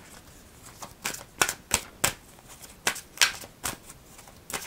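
A deck of oracle cards being handled and shuffled by hand: a run of short, irregular card snaps and rustles.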